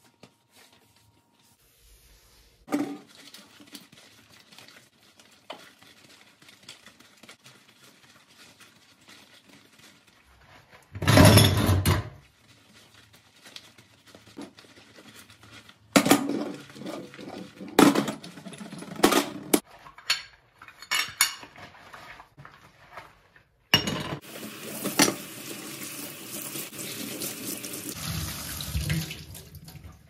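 Kitchen sink cleaning: metal gas-hob burner grates knocking and clattering against a stainless steel sink as they are scrubbed in soapy water, with several sharp clatters. A tap runs steadily for several seconds near the end.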